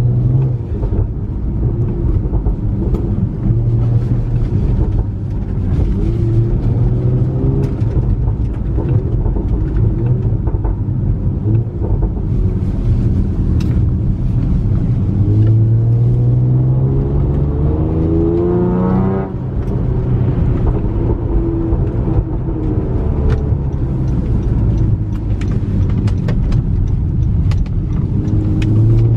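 Honda Accord with a pops-and-burbles tune running while driving. The engine note climbs steadily under acceleration, then drops suddenly at a gear change about two-thirds of the way in. Sharp exhaust pops and crackles are scattered throughout.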